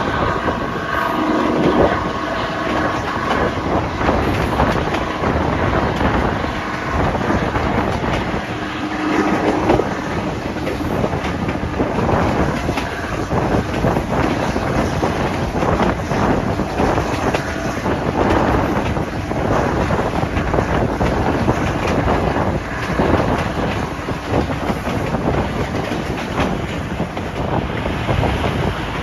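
Class 55 Deltic locomotive's two Napier Deltic two-stroke diesel engines working hard at the head of the train, heard from an open coach window, with the coaches' wheels running and clicking on the rails and wind on the microphone.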